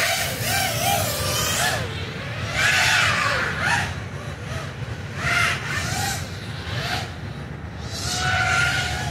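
A 5-inch FPV racing quadcopter (ARRIS Chameleon 220, with 2306 brushless motors and folding props) in flight. The motor whine slides up and down in pitch as the throttle is punched and eased, with repeated surges of propeller rush, the strongest about three seconds in.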